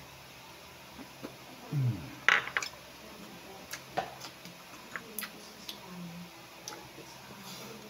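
Close-up eating sounds: a bite into a steamed okra pod, then wet chewing with scattered small mouth clicks. A brief low hum, dropping in pitch, comes just before the bite, about two seconds in.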